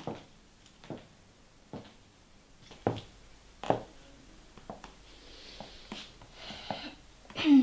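High-heeled shoes clicking on a hard floor in steady footsteps, about one step a second. Then softer rustling, and a louder short sound near the end.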